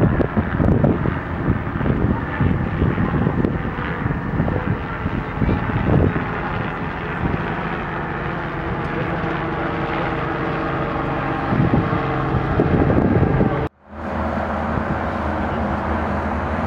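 New Holland tractor's diesel engine running steadily under load while pulling a plough, a continuous drone. Low rumbling gusts in the first few seconds; the sound cuts out abruptly for a moment near the end, then resumes.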